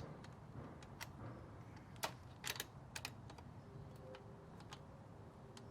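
Scattered light metallic clicks and taps as a motorcycle exhaust mounting bracket and its hardware are worked by hand into a tight gap, with a small cluster of clicks about two and a half seconds in.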